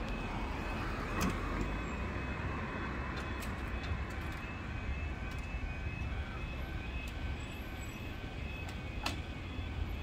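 Level crossing electronic alarms sounding a pulsing tone over a low rumble of road traffic. Two sharp clicks, about a second in and near the end.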